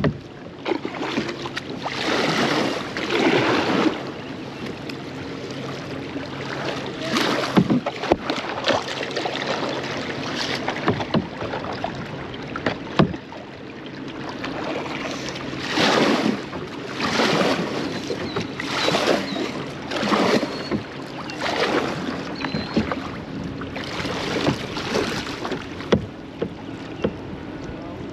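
Kayak paddle strokes on a river: the blade dipping and pulling through the water again and again, with splashing and dripping over a steady rush of water.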